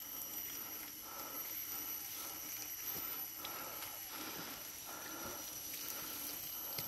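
Forest ambience of wild animals: a steady high-pitched drone with a repeated call about once a second.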